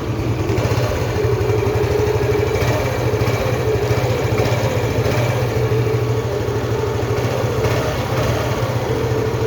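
Small scooter engine idling steadily, its exhaust putting out a fast, even pulsing note.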